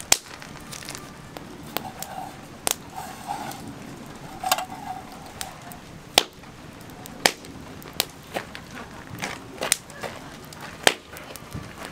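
Wood campfire crackling, with sharp single pops at irregular intervals, about one a second, over a low steady background.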